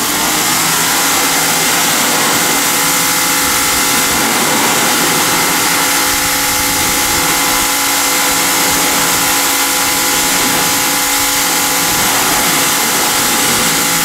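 Greenworks Pro 2200 PSI electric pressure washer running steadily: a steady motor-and-pump hum under the hiss of the water jet from a 25-degree nozzle striking wooden deck boards.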